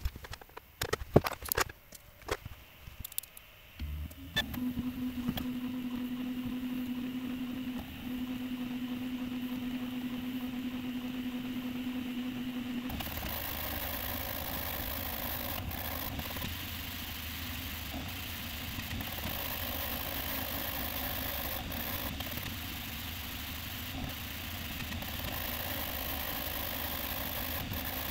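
Prusa MK4 3D printer: a few sharp clicks at first, then from about four seconds a steady hum with one low tone. From about thirteen seconds comes the dense, steady whirring of its stepper motors and fans printing, sped up.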